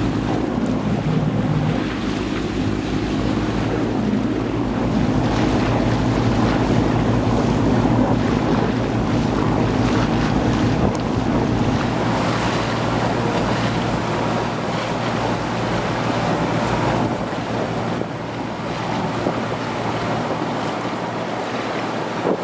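Sailboat under way: wind buffeting the microphone and water rushing past, over a steady low engine hum whose deepest rumble fades in the second half.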